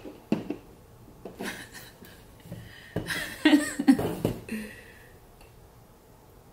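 A woman laughing briefly about three seconds in, after a few short clicks and taps.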